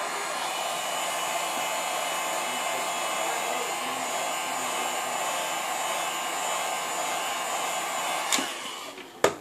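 Heat gun blowing steadily on the phone's glass to soften the adhesive so the glass can be prised off. It switches off about eight seconds in, followed by a sharp click.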